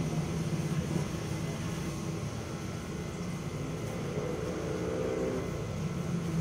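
Steady low mechanical rumble with a faint hum.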